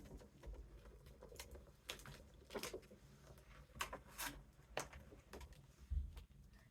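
Faint, scattered crinkles and light taps of a gift bag and poster board being handled and pressed down during hot-gluing, with a soft thump about six seconds in.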